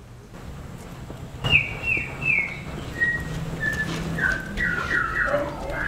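A run of short whistled notes, the first three high and the rest stepping lower and coming faster toward the end. There is a sharp knock about a second and a half in, as the notes begin.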